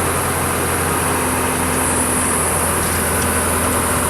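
Engine of a powered aerial lift running steadily, with a higher steady hum that stops about two and a half seconds in as the lift moves the platform closer in to the bell.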